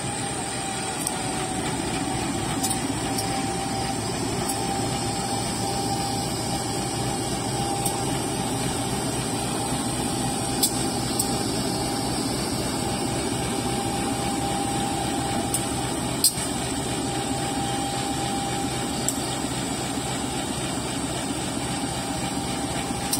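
CC201 diesel-electric locomotive running at low power as it moves slowly along the track: a steady engine rumble with a steady whine above it, and a few short sharp clicks.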